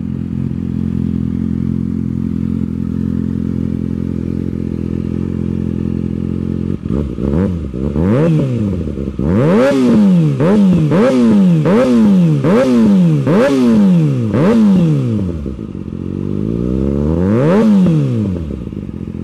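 Kawasaki ZX-6R 636's inline-four engine breathing through an M4 slip-on exhaust. It idles steadily, then is revved in a quick run of about seven throttle blips, with one more rev near the end.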